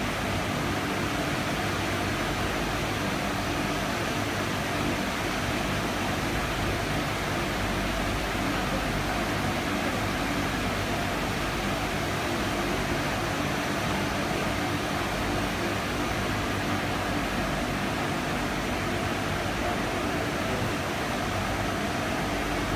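Metal-cleaning machine running steadily: a constant hum over a broad hiss, with no change in level.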